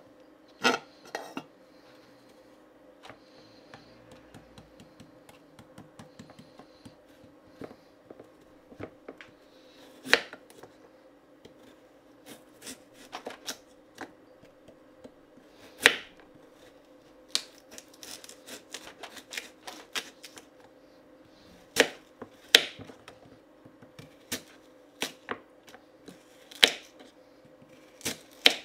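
Kitchen knife slicing a carrot into rounds on a wooden cutting board: separate sharp knocks as the blade cuts through and hits the board, spaced unevenly from under a second to several seconds apart.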